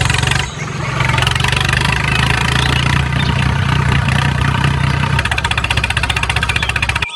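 A motor or engine running steadily with a low hum, cutting off suddenly near the end.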